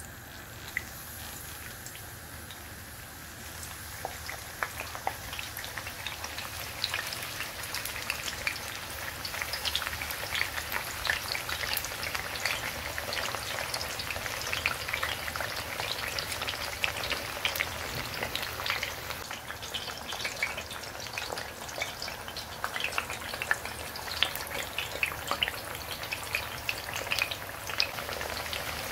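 Eggplant slices frying in hot oil in a pan: steady sizzling with dense crackling pops, building over the first several seconds as the pan fills with slices.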